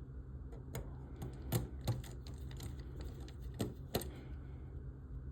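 Irregular small clicks and taps of tiny screws and a screwdriver being worked into a model kit's frame parts, with a few sharper clicks near the middle.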